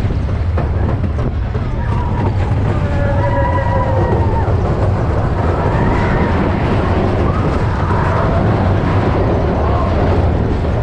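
Big Thunder Mountain Railroad mine-train roller coaster rumbling along its track at speed, a steady low rumble, with riders' voices calling out over it from about two seconds in.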